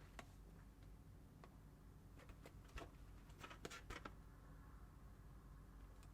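Faint rustling and light clicks of a packet being handled, a few short crinkles between about two and four seconds in, over a low room hum.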